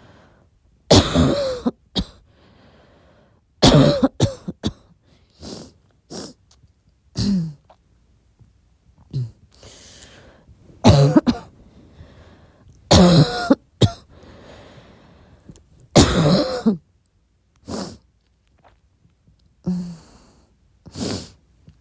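A person coughing over and over: short, sharp coughs in ones and pairs every second or two, several with a brief throaty voiced catch, with quieter breaths between them.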